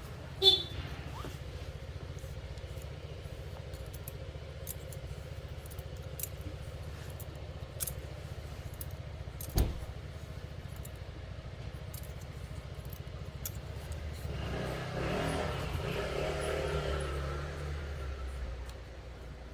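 Haircutting sounds: a steady low electric hum with scattered small clicks, two sharper knocks, and a louder rumble with shifting pitch from about 14 to 19 seconds in, like a vehicle passing.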